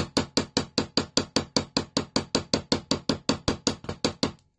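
Ball pein hammer tapping quickly and evenly on thin 0.5 mm sheet metal lying on a metal bench block, about five or six light strikes a second, stopping near the end. The strikes texture the metal with small dimpled indents.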